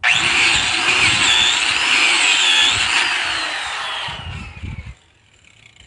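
Handheld power tool switched on abruptly and run at full speed for about three seconds, then released, its whine falling as it spins down and stops.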